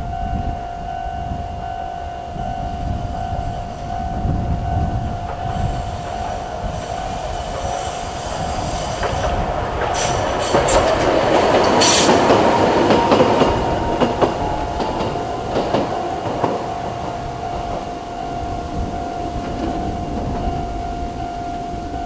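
Electronic level-crossing warning bell ringing at a slow tempo throughout, while a Toei Arakawa Line tram passes over the crossing. The tram's noise builds over several seconds, peaks near the middle with sharp wheel clicks over the rail joints, then fades.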